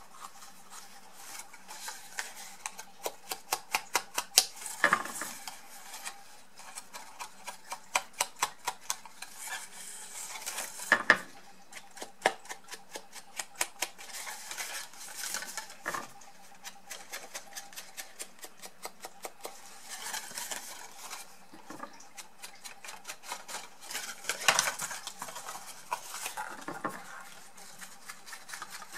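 Small ink sponge dauber dabbed and rubbed along the edges of folded cardstock, making runs of quick light ticks at several a second. The card rustles as it is turned in the hands, loudest about 5, 11, 16 and 24 seconds in.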